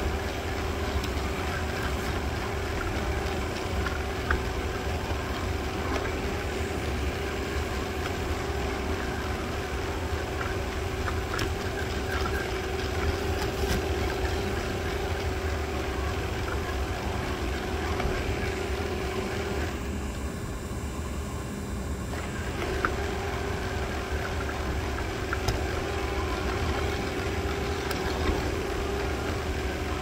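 Robot vacuum running: a steady motor hum with a constant tone, and a few light clicks. The higher part of the sound drops away for about two seconds about two-thirds of the way through.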